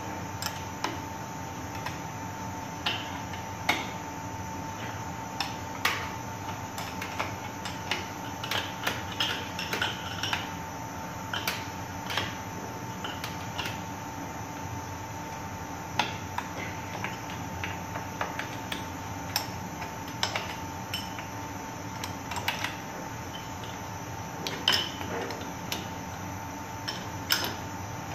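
Irregular metallic clicks and clinks of a wrench working the flange nuts as the bolts around a pump's rubber expansion joint are tightened. A steady machine hum with a thin high tone runs underneath.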